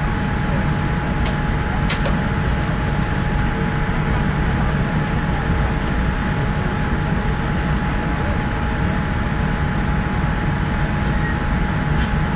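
Steady cabin noise inside a Boeing 787-9 airliner moving on the ground: a constant rumble of air and machinery with a faint steady whine.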